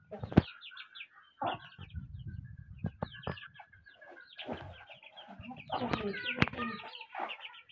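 Chicks peeping in quick runs of short, high notes while a hen clucks. There are a few sharp taps of beaks pecking at the dirt floor.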